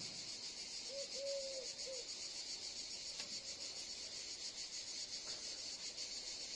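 Steady high-pitched chorus of insects chirping. About a second in, a bird gives a few short low calls.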